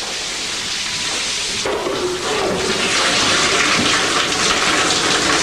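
Water rushing and splashing, a steady gushing that grows louder about two seconds in.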